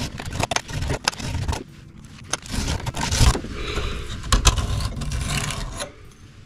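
Steel knife handle scale dragged by hand along a stationary, clamped sanding belt: a series of gritty scraping strokes with small clicks as the scale is set down and pushed. The strokes scuff straight texture lines into the steel. The scraping stops about six seconds in.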